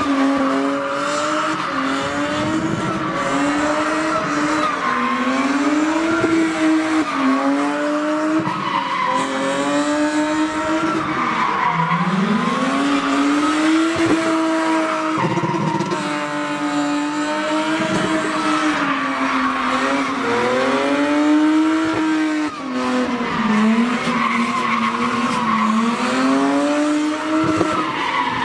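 A car drifting. Its engine is revved hard, the pitch rising and falling over and over, with one deep drop about twelve seconds in before it climbs again. The tyres squeal and skid on the tarmac throughout.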